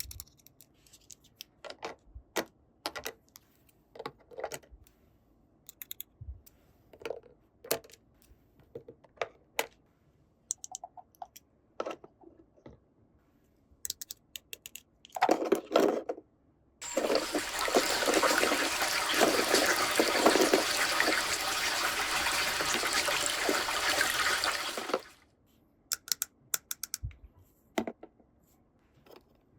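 Small plastic toy pieces clicking and tapping. About halfway through comes roughly eight seconds of steady running water, which stops suddenly.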